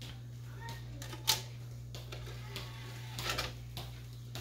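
Philips CDR 778 CD recorder's disc drawer closing and the drive starting to read the disc: a sharp click about a second in, then a short clatter a little after three seconds, over a steady low hum.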